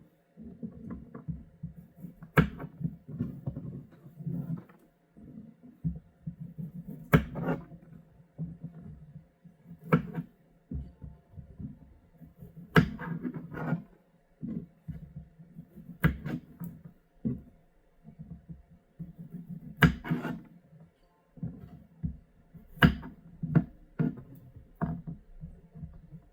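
Hands working with garlic cloves and kitchen utensils: a sharp click or tap every few seconds over low thuds and rumbling handling noise.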